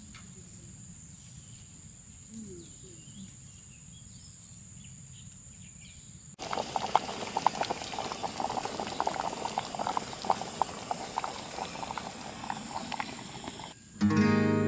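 Quiet outdoor ambience with a steady high-pitched whine. Then, from a sudden cut about six seconds in, fish curry simmering in a stainless steel pot: a dense run of small pops and bubbling. Acoustic guitar music starts near the end.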